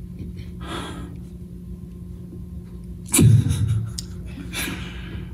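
A man fighting back tears, breathing unsteadily and sniffing: a short breath about a second in, a louder catch of breath about three seconds in, then a sniff, over a steady low hum.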